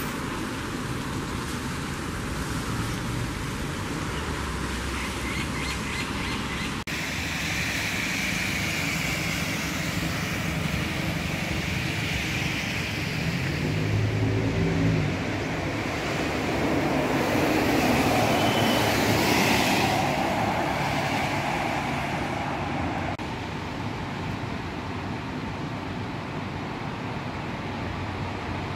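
City street traffic: cars passing on a wet road, with tyre hiss and engine noise. The traffic swells loudest a little past the middle, as a car goes by close.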